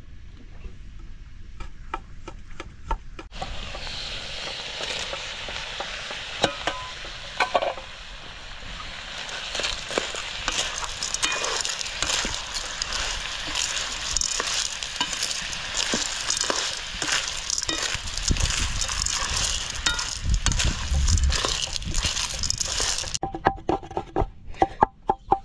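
Food frying in hot oil in a pan: a loud, dense sizzle that starts about three seconds in and cuts off suddenly near the end, with scattered clicks throughout.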